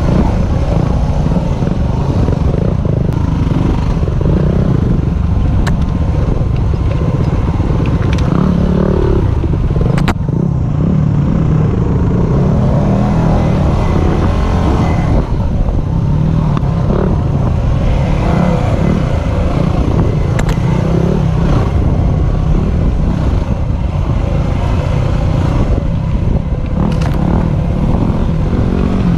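Yamaha WR250R single-cylinder four-stroke dirt bike engine running under changing throttle as it is ridden along a dirt single track, pitch rising and falling. Wind noise on a helmet-mounted microphone sits over it, with a few sharp clicks of brush or stones striking the bike.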